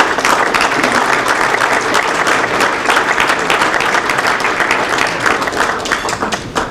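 Audience applauding: many people clapping together, dying away near the end.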